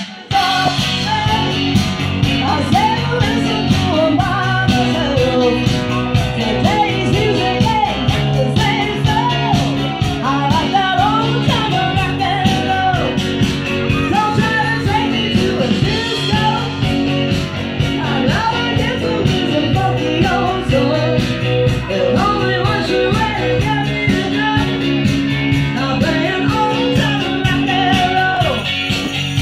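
Live band playing an upbeat rock-and-roll song: a singer over electric guitar and a steady beat.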